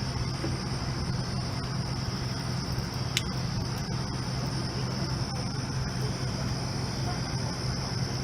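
Fire truck engines idling in a steady low hum under a continuous chorus of crickets, with one short sharp click about three seconds in.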